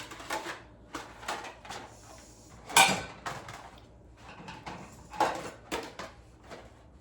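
Ceramic plates clinking and clattering against each other as they are lifted out of a dishwasher rack and stacked, a string of separate knocks with the loudest a little before the middle.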